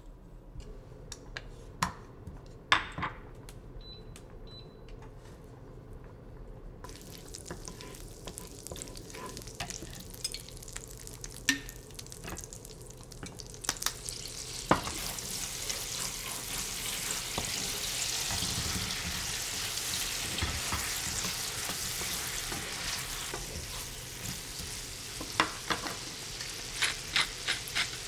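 Food frying in a pan of hot oil: the sizzle sets in about a quarter of the way through and grows much louder around halfway. Sharp clicks come near the start and again near the end.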